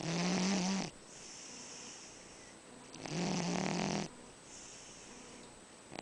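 Sleeping cat snoring. Two loud, buzzing snores come about three seconds apart, each lasting about a second, with softer breathing between them.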